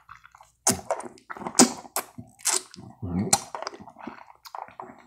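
Close-miked mouth sounds of sucking a Charms Blow Pop lollipop: an irregular string of sharp clicks and smacks, a few a second.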